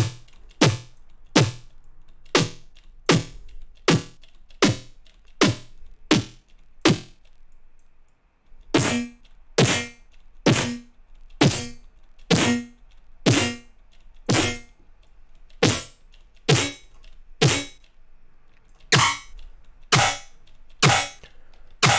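Serum software synthesizer sound being designed, played as a short, sharp hit about every three quarters of a second, each hit falling in pitch. Its tone shifts as the filter resonance is adjusted, with a short break about seven seconds in, after which the hits carry a lower ringing tone.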